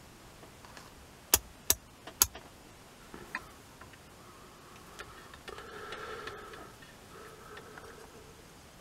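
Three sharp plastic clicks about half a second apart as a digital multimeter's rotary selector switch is turned on to the ohms range, then faint rustling and handling of the test probes.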